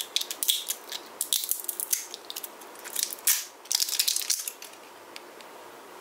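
Plastic packaging crinkling and crackling as it is handled, in a quick run of crackles and clicks that stops a little over four seconds in.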